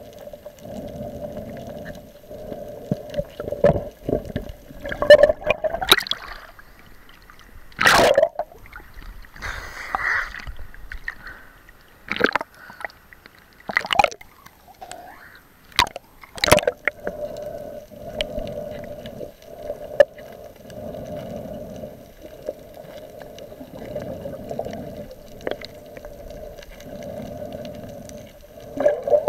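Muffled water sloshing and gurgling, heard through an underwater camera's waterproof housing. A run of sharp splashes and gurgles comes in the middle, then the steady muffled wash returns.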